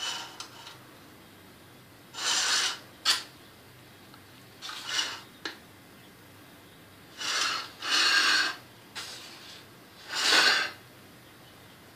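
Spoon scraping and rubbing over blueberry topping and the rim of a springform cake pan: a handful of short rasping strokes a second or two apart, with a couple of sharp clicks.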